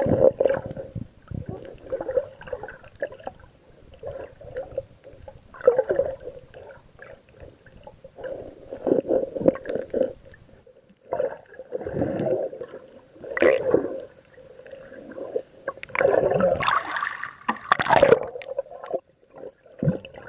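Muffled water sloshing and gurgling picked up by a camera in a waterproof case held underwater, rising and falling in uneven swells every second or two, with the strongest surges near the end.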